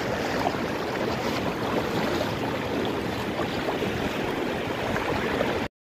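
Floodwater flowing across a highway, a steady rushing noise that cuts off suddenly near the end.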